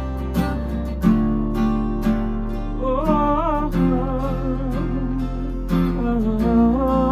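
Taylor acoustic guitar strummed in a steady rhythm, the chord changing every few seconds. From about three seconds in, a man sings long, wavering notes over it without clear words.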